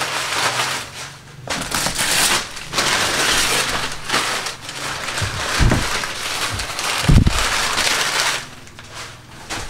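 Brown wrapping paper being pulled off a cardboard box and crumpled by hand, crackling in bouts, with two low thumps about a second and a half apart past the middle.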